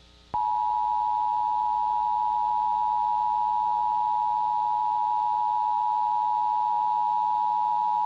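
Emergency Alert System attention signal: a steady two-tone alarm of about 853 Hz and 960 Hz, starting about a third of a second in. It announces an emergency broadcast, here a National Weather Service flash flood warning.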